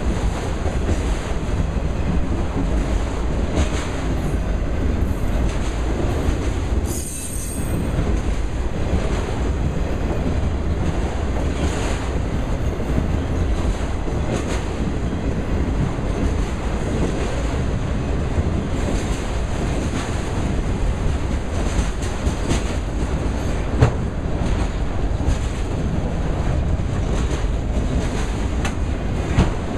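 Autorack freight cars rolling past close by: a steady rumble of steel wheels on rail. There is a brief high-pitched wheel squeal about seven seconds in, and a single sharp click late on.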